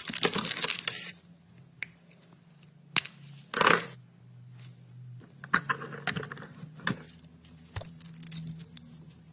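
Small plastic car-key parts being handled: a rustle at first, then scattered light clicks and ticks, with a short scratchy scrape a few seconds in.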